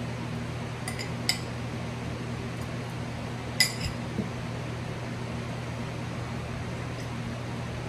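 Steady low hum of room fans, with a few sharp clinks of a metal spoon against a glass jar and glass bottle: two about a second in and a louder one about three and a half seconds in.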